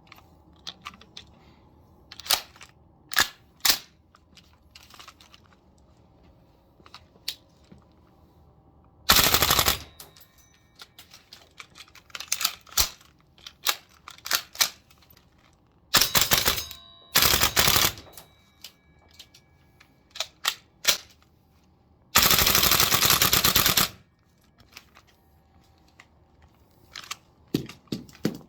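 VFC SR-16 carbine gas-blowback airsoft rifle firing: a few single shots, then short full-auto bursts and one longer burst of nearly two seconds, with small handling clicks between them.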